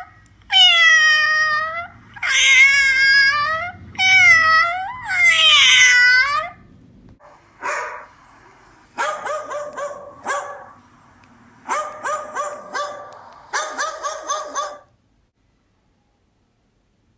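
Domestic cat meowing four times in long, drawn-out calls. Then a dog barks in three quick runs of short barks, with silence near the end.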